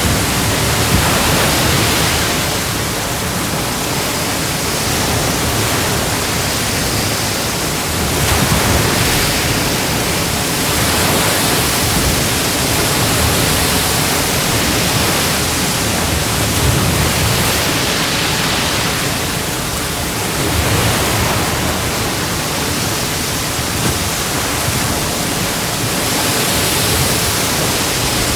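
Ocean waves breaking and washing on the shore in a steady, dense rush of surf, swelling and easing every few seconds.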